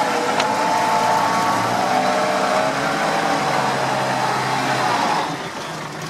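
UAZ off-roader's engine running hard under load as it churns through deep mud, its pitch wavering; it turns quieter shortly before the end.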